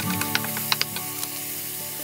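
Chicken and garlic sizzling in a hot wok, with a few sharp clicks in the first second from a wooden spatula against the pan. Background music plays with steady held notes.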